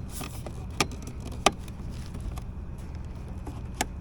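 A few sharp clicks and knocks of hard plastic as a car center console part is handled and fitted back into place: three distinct clicks over a steady low rumble.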